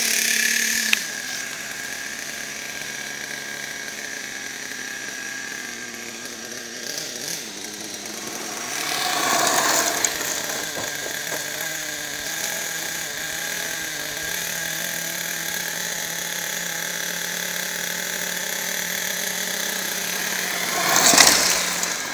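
Radio-controlled truck's motor running with a steady, buzzing whine, growing louder about ten seconds in and again, sharply, near the end as the truck comes close.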